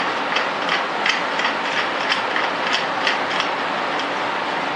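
Hand crank of a homemade cast-aluminium Gingery dividing head being turned, its mechanism clicking about three times a second over a steady hiss.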